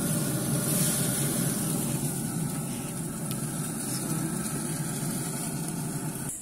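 Pit Boss pellet grill running with steaks flaming on the grate: a steady rumble from its fan and fire, with a constant high hiss over it.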